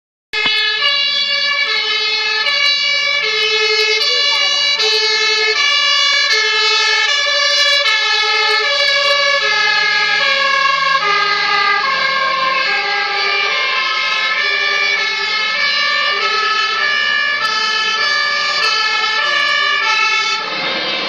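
German two-tone fire-service sirens (Martinshorn) on a passing fire brigade convoy, alternating high and low notes about every half second. Several horns sound out of step with one another, and their pitch sits a little lower after the lead fire engine has passed and the vehicles move away. A faint engine rumble lies beneath.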